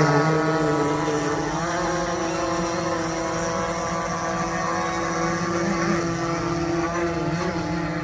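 Radio-controlled model boat's motor running steadily with a whining tone at a nearly constant pitch, growing a little fainter toward the end.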